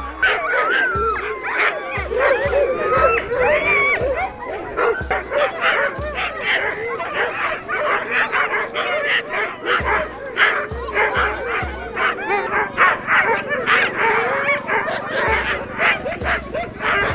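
A hitched team of sled huskies barking, yipping and whining together, many overlapping calls rising and falling in pitch without a break: the eager clamour of sled dogs harnessed and waiting to run.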